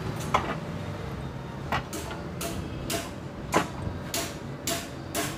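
Short metallic knocks and clicks, about nine in five seconds at uneven spacing, as the replacement A/C compressor and its mounting bolt are worked into place against the engine bracket.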